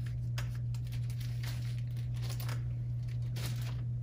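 Light crinkling and rustling with a few small clicks, from paper and craft supplies such as markers being handled on a table, over a steady low hum.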